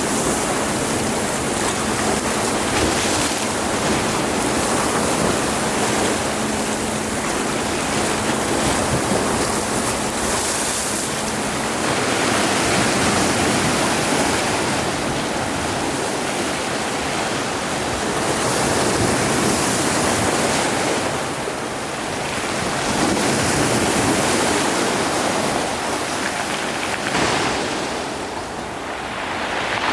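Sea surf: a continuous rush of waves that swells and eases every few seconds.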